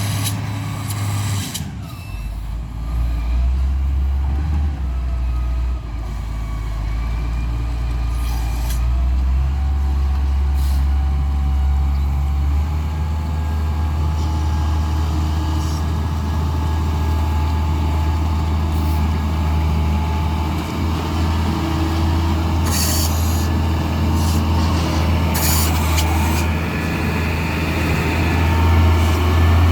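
Heavy diesel vehicle engine running at length, its note dropping about two seconds in. Short air hisses twice near the end.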